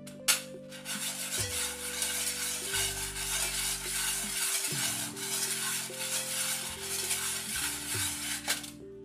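Steel dowel pins swirled around inside a stainless steel bowl, rattling and scraping continuously against the metal. It starts with a sharp clink and ends with another clink shortly before the end.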